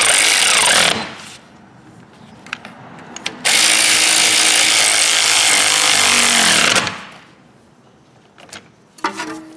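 Power ratchet on a long socket extension running down the last two bolts at a rear brake caliper, in two runs, the first about a second long and the second about three seconds, each a steady hiss and whirr, the second winding down as it stops. A few light clicks near the end.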